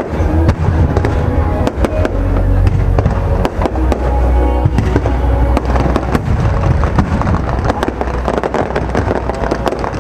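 Fireworks show: a dense barrage of shells bursting, with rapid cracks and deep booms overlapping, over music playing.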